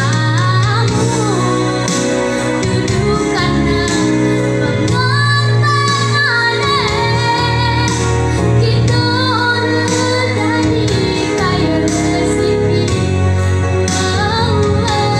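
A young girl singing a Banten regional song solo into a microphone over instrumental accompaniment, her voice holding and bending long notes.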